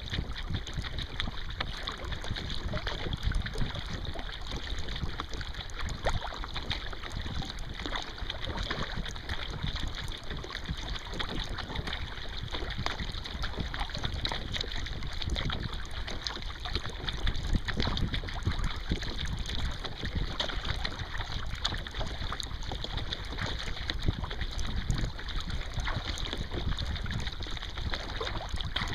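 Water splashing and lapping around a kayak as a wooden Greenland paddle dips in and out on each stroke, over a steady low rumble of wind on the microphone.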